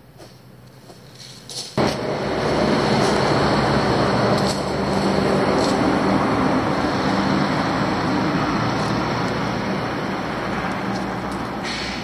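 Heavy truck driving past on the road close by: its engine drone and tyre noise come in suddenly about two seconds in and stay loud and steady, easing a little near the end.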